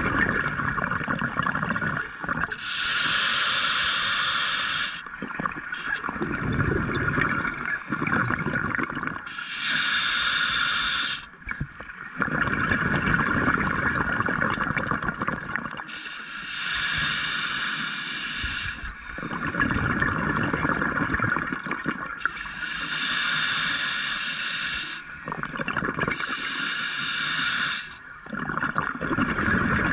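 Scuba diver breathing through a regulator underwater: hissing breaths alternating with the bubbling rumble of exhaled air, about five breath cycles in a slow, even rhythm.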